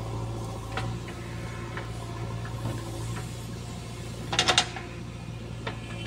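JCB 3DX backhoe loader's four-cylinder diesel engine running at a steady hum while the backhoe digs into soil, with scattered clanks and a quick run of three or four sharp knocks about four and a half seconds in.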